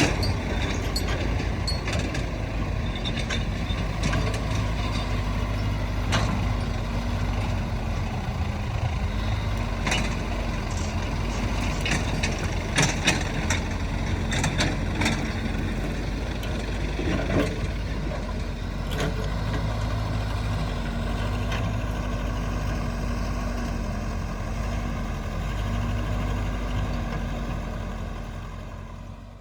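Excavator's diesel engine running steadily, with scattered sharp metallic knocks over it; the sound fades away at the very end.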